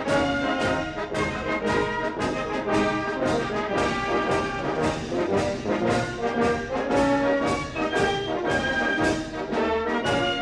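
Military brass band playing a march, with drum strokes marking a steady beat of about two a second.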